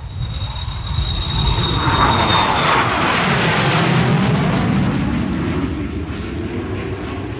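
A loud rushing whoosh that swells over a couple of seconds and then slowly fades, its pitch sweeping as it passes, like an aircraft flying by.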